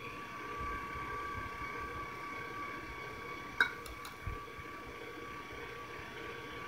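Electric stand mixer running with its flat beater creaming butter, cream cheese and sugar: a steady motor whine. One sharp click about halfway through, with a couple of faint ticks just after.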